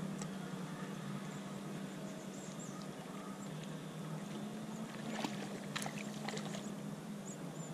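A hooked mullet splashing at the surface while being played on a rod and line, with a few short splashes about five to six seconds in. A steady low hum runs underneath.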